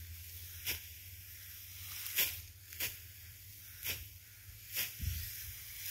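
Short dry rustling noises, about one a second and irregularly spaced, over a steady low wind rumble on the microphone, with a dull thump near the end.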